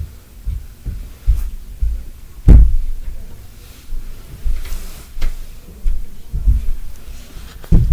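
Irregular dull, low thuds and bumps, about one every second or so, the loudest about two and a half seconds in.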